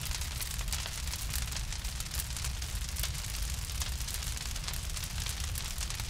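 Crackling fireplace sound effect, looped: a dense stream of small pops and snaps over a steady hiss and a low rumble.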